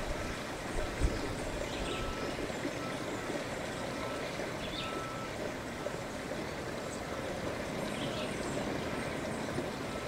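Steady outdoor background hiss with no clear single source. Faint short chirps come through every few seconds.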